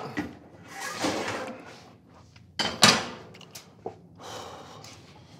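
Kitchen clatter: a few sharp knocks and scrapes of cookware, among them a glass lid being set on a metal wok. The loudest pair of knocks comes about three seconds in.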